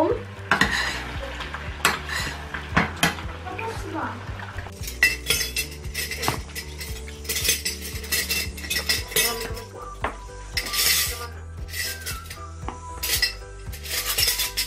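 Utensils clinking and scraping against a stainless steel pan and a plate, in an irregular run of light knocks and clicks as pasta is tossed and eaten.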